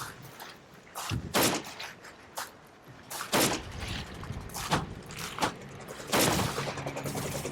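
Gunshots in a war-film soundtrack: single shots about a second apart, each with an echoing tail. A low steady engine hum comes in near the end.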